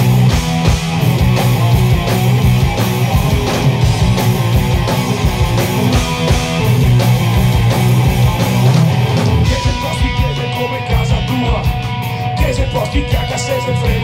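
Live punk rock band playing electric guitars, bass and drums, loud and dense; about ten seconds in the music drops into a sparser section with a steady, evenly spaced beat.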